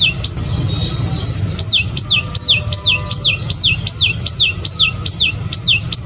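Common tailorbird calling: a rapid series of sharp notes, each sweeping down in pitch, about three a second with a short break about a second in, over a steady high tone and a low rumble.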